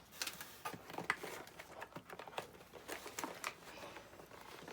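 Fishing-tackle packaging being handled: irregular light clicks, taps and rustles.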